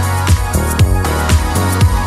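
Recorded song: a steady beat with a kick drum about twice a second over a sustained bass line, with cymbal ticks between the beats.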